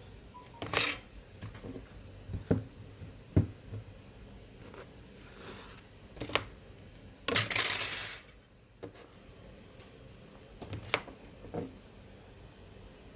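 Scattered knocks, taps and clinks of hard objects being handled, with one longer noisy burst lasting under a second about seven seconds in.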